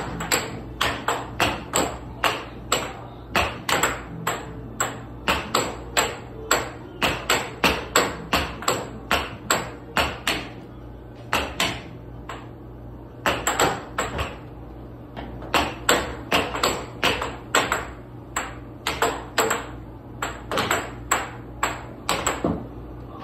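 Air hockey puck clacking back and forth off the mallets and the table's rails in a fast rally, several hard knocks a second, with a short lull near the middle.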